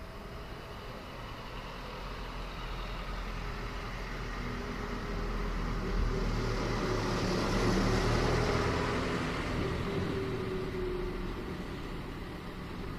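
A motor vehicle driving past on a residential street: engine hum and tyre noise build up, peak about halfway through, then fade away.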